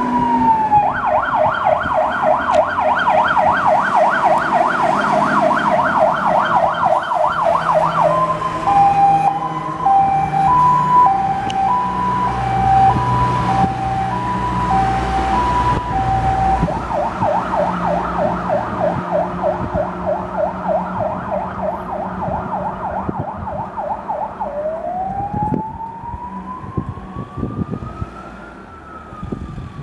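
MAN TGM 13.280 fire engine's electronic siren on an emergency run. It goes from a rapid yelp to a two-tone hi-lo, back to the rapid yelp, and ends on a slow rising and falling wail. The truck's engine rumbles under the hi-lo as it passes, and the siren grows fainter near the end as the truck drives away.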